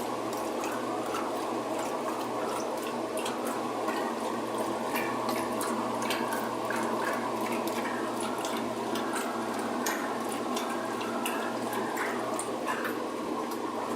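Magic Chef top-load washing machine agitating a heavy load of blankets in a full tub: steady water churning and sloshing with a low motor hum. The motor, fitted with new bushings, is running the wash normally under load.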